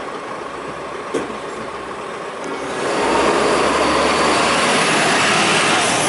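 Rubbish truck working, its engine running steadily with a single knock about a second in, then getting clearly louder about three seconds in and staying loud.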